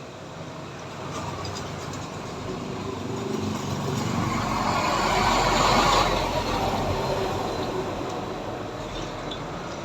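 A vehicle passing by, with a low rumble that grows louder to a peak about five or six seconds in and then fades away.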